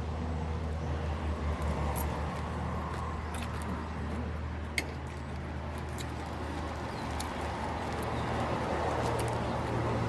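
A man chewing a mouthful of papaya salad, with scattered small mouth clicks and smacks, over a steady low background hum.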